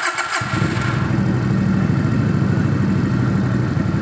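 A V-twin chopper motorcycle engine on its electric starter, catching about half a second in, then idling steadily.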